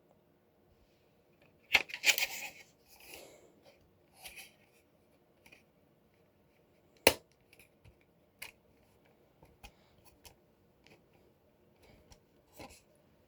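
Hands handling a plastic Wheelock fire alarm strobe and its dangling wires: scattered plastic clicks and rustles. The loudest are a sharp click followed by a short scrape about two seconds in, and another sharp click about seven seconds in.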